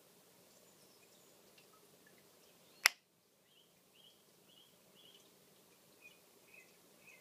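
Pistol shrimp snapping its claw: a single sharp, loud crack about three seconds in, over a faint steady background, with a few faint short chirps after it.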